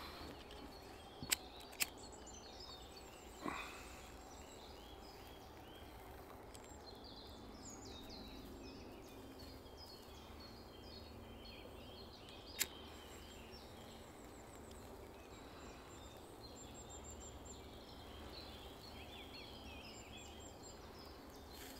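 Faint chirping of small woodland birds, broken by a few sharp clicks: two close together near the start and one about halfway through, as a disposable flint lighter is struck to light wet beech bark.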